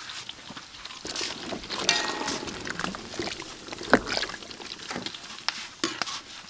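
Vegetables being stirred with a wooden spatula in a large steaming metal pot: wet sloshing and clicking of the pieces in the liquid, with a sharp knock of the spatula against the pot about four seconds in.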